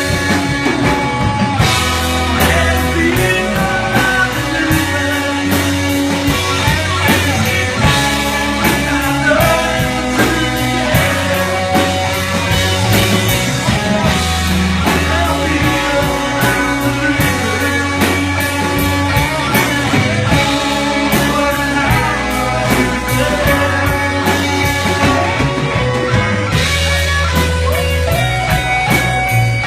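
Indie rock song played by a band: electric guitar over a drum kit keeping a steady beat.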